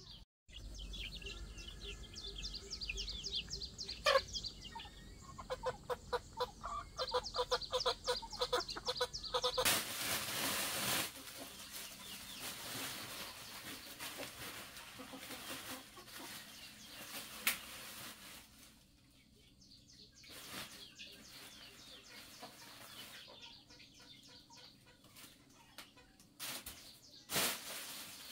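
Chickens clucking in quick repeated calls for about the first ten seconds. Then plastic-bag rustling and soft knocks as things are packed into a woven bamboo basket, with a few sharp clicks and two louder rustles near the end.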